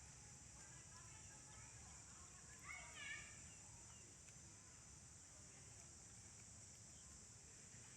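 Faint, brief high squealing calls of a newborn monkey, a short cluster about three seconds in, over a steady high-pitched drone of insects.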